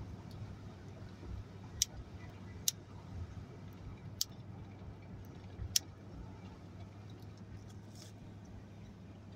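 Steady low drone of a vehicle driving along a road, heard from inside the cabin, with four sharp ticks in the first six seconds.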